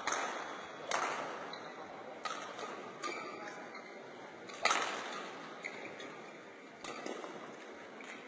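Badminton rackets striking shuttlecocks during practice: about six sharp, irregularly spaced cracks, each echoing in a large sports hall, the loudest about halfway through.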